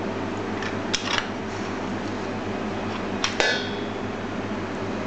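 A few metal clinks of a stainless steel potato ricer against a stainless steel bowl: a pair about a second in, then a louder one about three seconds in that rings on briefly, over a steady low hum.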